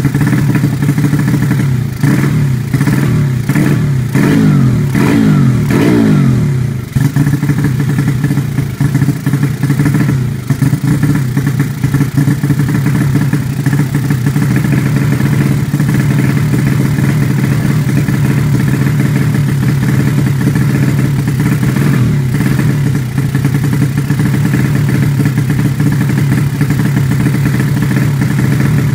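Honda Supra motorcycle's single-cylinder four-stroke engine, fitted with Honda Sonic 150 valves, running. It is blipped up and down about half a dozen times in quick succession over the first several seconds, then settles to a steady idle.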